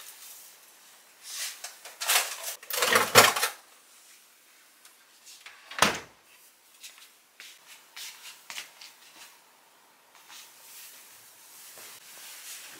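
Household handling noises: rustling and scraping about two seconds in, then a single sharp knock near six seconds, followed by lighter clicks and soft rustling.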